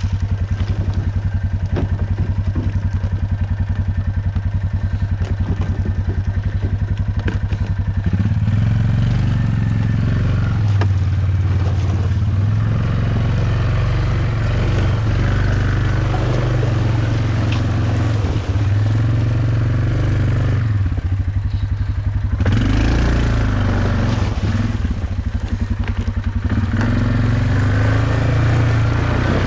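Off-road vehicle's engine running while driving a trail, pulsing evenly at low revs for the first several seconds, then steadier with the engine speed rising and falling now and then.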